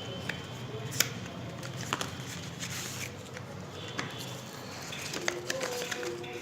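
Hands handling a phone's cardboard retail box and the paper inserts inside it: light rustling with a few sharp clicks and taps, the loudest about a second in.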